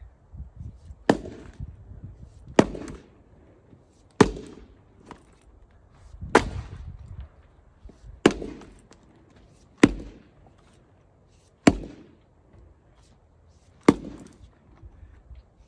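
Axe splitting a row of firewood rounds: eight sharp cracks, one about every one and a half to two seconds, as each round is struck and cracked in half.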